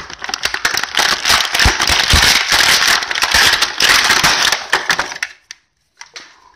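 Clear plastic blister packaging crinkling and crackling as hands work an action figure free of it, a dense run of small crackles that stops abruptly about five seconds in, followed by a few faint clicks.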